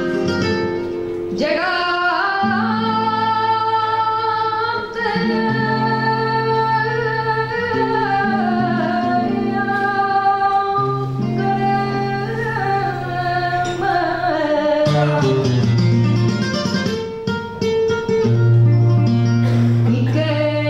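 Female flamenco singer (cantaora) singing long held lines that bend and waver in pitch, accompanied by a flamenco guitar. There are two short breaks between phrases.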